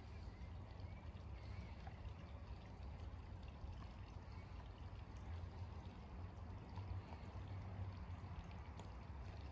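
Steady trickle and splash of a garden rock waterfall over a low, steady rumble.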